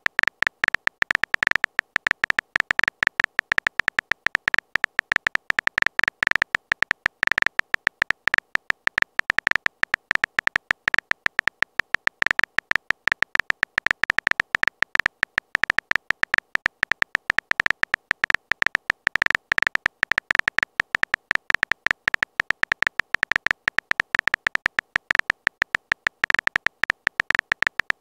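Chat-app keyboard typing sound effect: a rapid, continuous string of short, sharp clicks with a slightly tonal ring.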